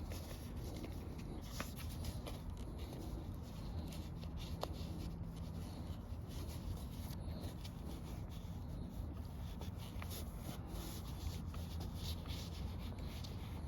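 Hands rubbing and handling convertible-top material, with irregular scratchy rustling and small clicks over a steady low hum.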